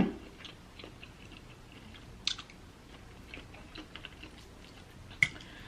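Close-miked chewing and wet mouth sounds of someone eating, with faint scattered clicks. There is a sharper click about two seconds in and another near the end.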